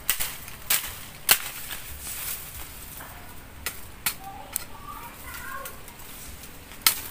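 Machete chopping a branch off a bamboo clump: sharp cracking blows at irregular intervals, about seven in all, the loudest about a second in and again near the end.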